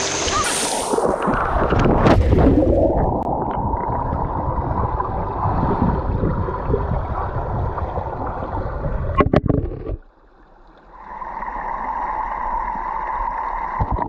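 Muffled rush and gurgle of turbulent water heard underwater through a submerged GoPro, with a few sharp knocks about nine seconds in. The sound drops out suddenly near ten seconds, then the muffled underwater noise comes back.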